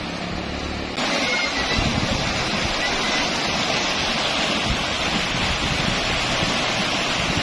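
Fast-flowing floodwater rushing and churning along a concrete embankment: a steady rush of water that comes in suddenly and louder about a second in. Before that there is a low hum.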